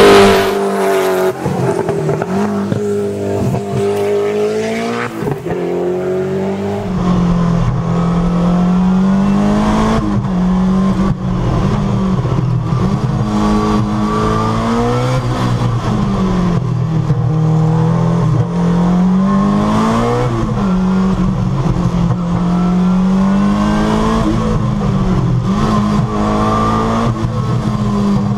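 Peugeot 205 T16 Group B rally car's turbocharged four-cylinder engine at full throttle. It is loudest right at the start as it passes close, then fades up the road. From about seven seconds in it is heard from inside the cockpit, revving up and dropping back again and again as it accelerates hard up a winding road.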